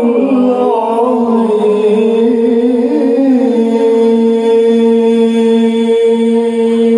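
Male Quran recitation (tilawah) sung in ornamented melodic style through a microphone and PA, winding through pitch turns and then settling into one long held note from about halfway.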